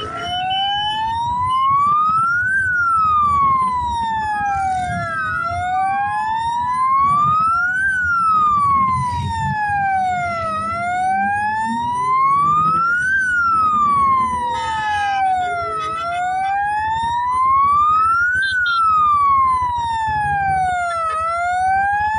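Emergency-vehicle siren in a slow wail, rising and falling about every five seconds, with a second, fainter siren sounding out of step with it. Underneath, the engines of quad bikes and motorcycles run and rev as they pass.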